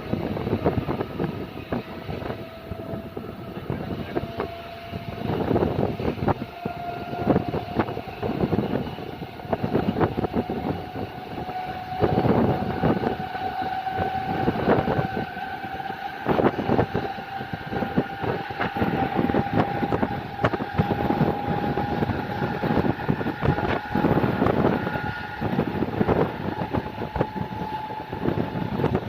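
Mumbai suburban electric local train running, its traction motors whining in a tone that climbs slowly and steadily in pitch as it gathers speed. Under the whine, the wheels clatter irregularly over the rail joints.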